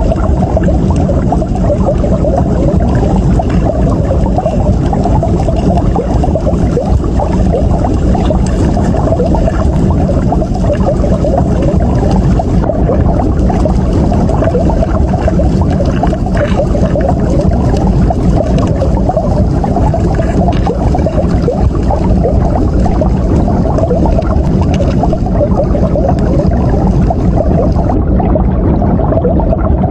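Steady rushing water noise picked up by a camera underwater, loud and dense, with most of its weight low down.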